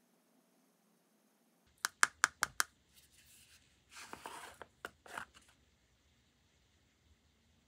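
Screw lid of a plastic gel top-coat jar being twisted open: a quick run of five sharp clicks, then rasping scrapes of the lid turning on its threads, and a few more clicks about five seconds in.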